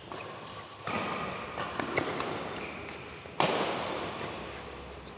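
Badminton rally: several sharp racket strikes on the shuttlecock, the loudest about three and a half seconds in, mixed with sneaker squeaks on the court floor. The strikes echo in a large hall.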